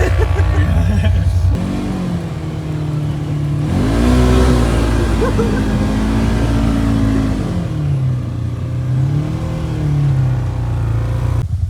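Side-by-side UTV engine revving up and easing off several times, its pitch rising and falling.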